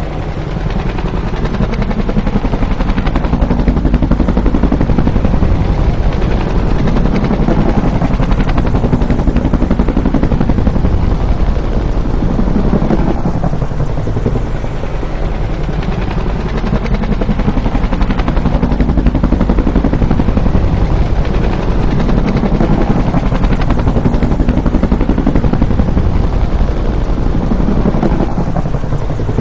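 Bell UH-1 'Huey' helicopter flying by, its rotor and engine running loud and steady. The sound eases briefly about halfway through and again near the end.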